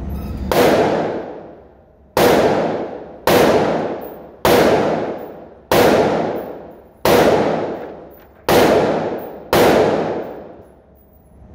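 Eight 9mm pistol shots from a Glock 19 in a folding full-concealment frame, fired at a steady slow pace of roughly one every second and a quarter, each shot trailing off over about a second.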